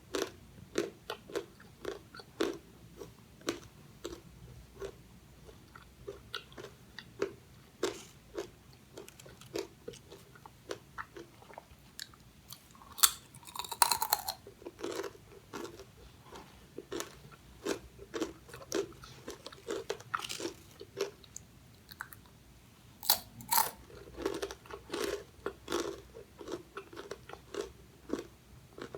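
Close-miked chewing of crisp fried snacks, banana chips and fish crackers: a steady run of sharp crunches, about two or three a second, with a few louder bites partway through.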